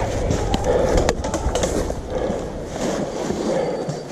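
A player moving in gear: rustling, footfalls and wind rumble on a body-worn action camera's microphone, broken by several sharp clicks and knocks.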